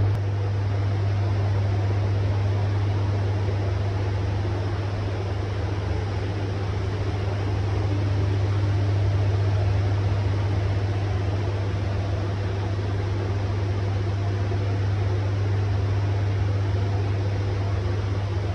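Spray booth ventilation fans running: a steady low hum under an even rush of air.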